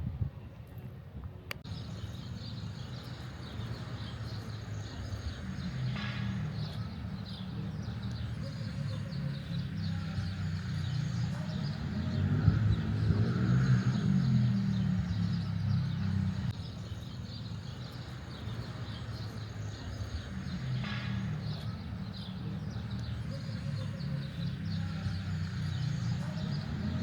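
Outdoor ambience: a low rumble, like passing traffic, that swells to its loudest about halfway through, with birds chirping faintly.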